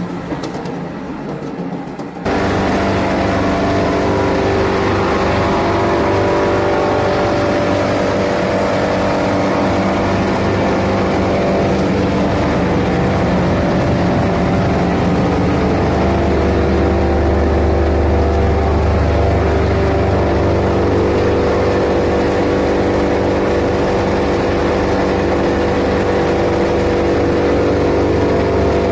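A copper cable granulator and separator running steadily: a loud, constant mechanical hum with several steady tones over a rushing noise. It starts abruptly about two seconds in, after a quieter stretch.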